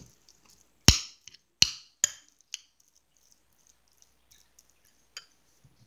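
Metal spoon clinking against a bowl while tuna is stirred: two sharp clinks about a second in, then a few lighter taps and a faint one near the end.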